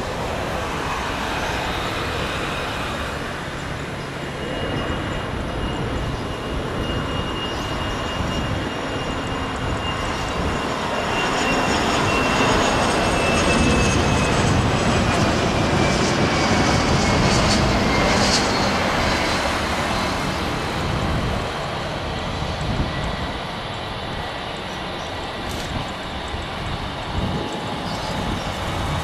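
Twin rear-mounted Rolls-Royce AE 3007 turbofan engines of an Embraer Legacy 650 business jet on landing approach: a steady jet rush that builds to its loudest as the jet passes closest, then eases off. A high engine whine slides down in pitch as it goes by.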